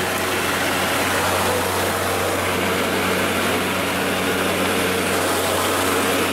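Greenworks 80V cordless lawn mower running with its blade spinning at a steady speed: an even electric hum under a broad whirring rush of air.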